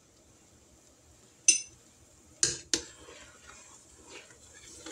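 A metal utensil clinking against an enamelled cooking pot as dumplings are pushed down into boiling broth: one ringing clink about a second and a half in, two sharper knocks close together a second later, then softer clatter.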